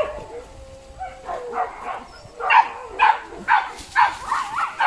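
Hunting dogs barking and yelping in short repeated cries, with one long drawn-out whine in the first second and a half and a quick run of yelps in the second half.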